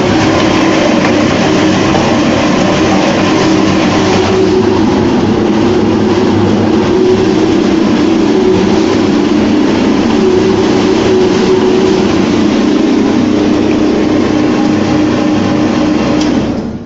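Frozen-meat grinder running under load: a loud, steady machine hum with dense grinding noise over it, which falls away sharply near the end.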